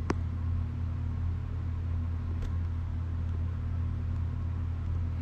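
Steady low hum of background noise with no speech, and one faint click just after the start.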